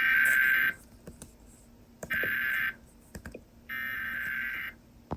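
Emergency Alert System SAME header data bursts received off FM radio: three harsh digital warbling screeches, each under a second long and about a second apart. This is the coded header that opens an EAS alert, sent three times over.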